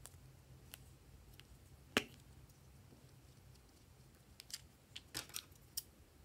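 Small plastic clicks from lip balm tubes being handled and their caps pulled off, the sharpest about two seconds in, and a quick run of clicks near the end.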